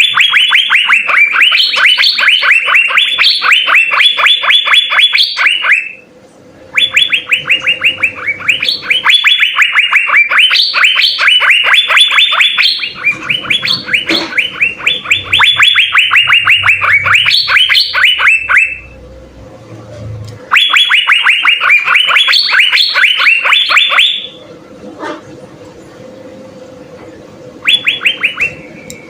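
Asian fairy-bluebird (cucak biru) singing loudly in long phrases of rapid, repeated downward-sweeping notes, about five a second, with short pauses between phrases.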